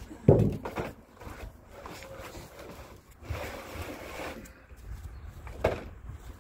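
Handling noises on a wooden porch deck as a paint roller on a pole is worked in its tray and someone steps past close by. There is a loud thump shortly after the start, a rustle of clothing and shoes in the middle, and a short sharp knock near the end, over a low rumble of wind.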